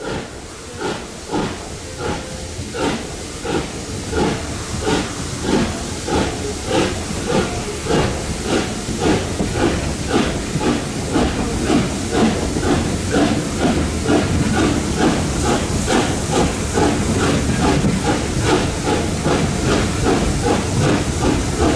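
Steam locomotive exhaust chuffing as it pulls away. The beats start slowly, about one a second, and quicken steadily to several a second while growing louder.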